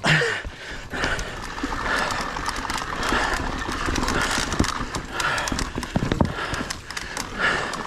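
Mountain bike clattering over rocks on a rough trail: a rapid, irregular run of knocks from the tyres, chain and frame, over steady rushing noise.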